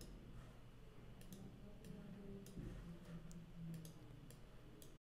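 Faint room tone with a handful of light, scattered clicks from computer input at the desk as anchor points are selected and dragged. The sound cuts off to silence near the end.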